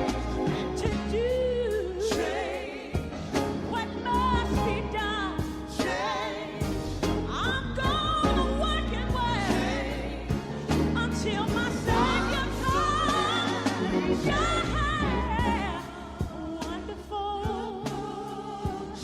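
Gospel song: a lead singer holding notes with heavy vibrato over a band with a steady bass line and a drum beat.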